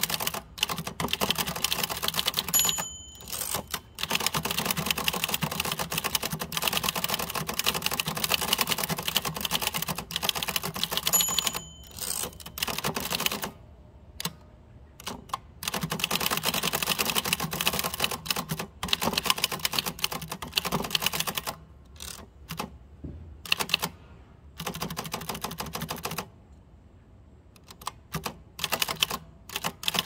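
1949 Adler Favorit 2 thrust-action typewriter typing in fast, dense key strikes, stopping briefly a couple of times. A short bell-like ring sounds twice, the line-end margin bell.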